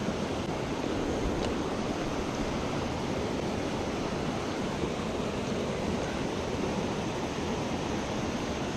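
Mountain stream running over rocks: a steady wash of moving water.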